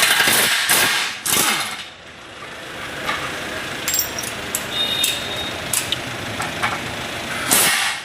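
Workshop tool noise: three short, loud metallic bursts in the first two seconds and another near the end, with steady light clatter between them.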